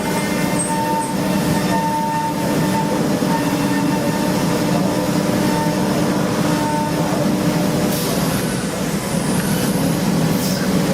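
CNC machining center cutting an engine block: steady, loud machine noise with whining tones that come and go, and a high whine that rises and falls about eight seconds in.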